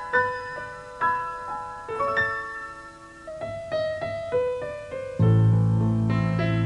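Piano music: single melody notes struck and decaying, then a full held chord with deep bass comes in about five seconds in.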